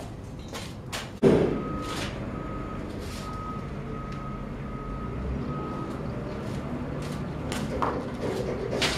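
Gas forge lighting with a sudden whump about a second in, then its burner running with a steady low noise. A single-tone beep repeats about twice a second for several seconds, and there is a knock near the end.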